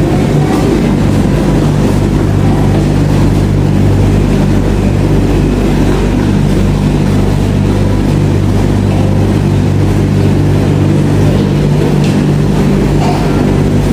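Speed Queen commercial tumble dryers running, a steady low hum from the turning drums.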